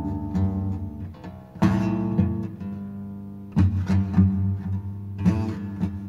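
Badly out-of-tune guitar with strings missing, strummed in slow chords that are left to ring. New chords are struck about a second and a half in, again near four seconds and just past five seconds.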